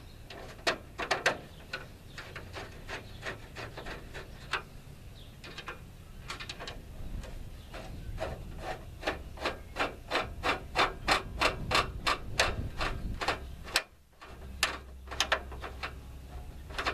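Hand screwdriver turning a screw into the truck's headlamp bezel: a long run of short rasping clicks, one per turn, about three a second at the busiest, with a brief pause near the end.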